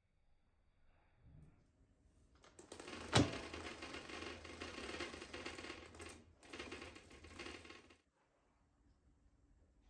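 Roller blind on a sliding glass door being raised, its mechanism rattling continuously with a sharp click near the start; it pauses briefly about six seconds in and stops about eight seconds in.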